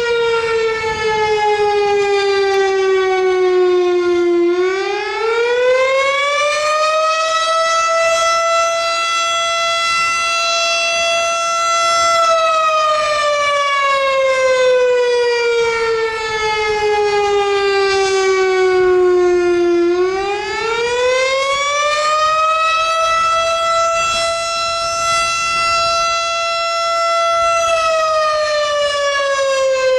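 Loud air-raid-style fire siren wailing. Its pitch climbs over a few seconds, holds steady, then sinks slowly, in a cycle of about fifteen seconds that comes round twice.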